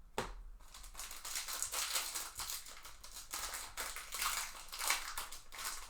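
Foil trading-card pack wrapper crinkling as it is torn open, with the cards inside being handled and shuffled: a steady crackle with many small clicks.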